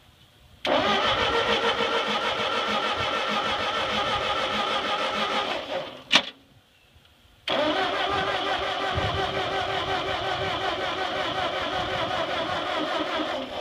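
Ford 8N tractor's four-cylinder flathead engine turned over by its starter motor in two long cranking bursts of about five to six seconds each, with a single sharp click between them. It cranks without catching, with no gas in it yet.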